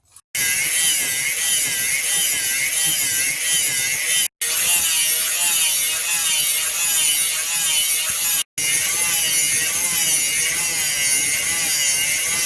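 Power grinder grinding a steel knife blade: a loud, steady high hiss with a wavering whine, breaking off sharply twice for a moment.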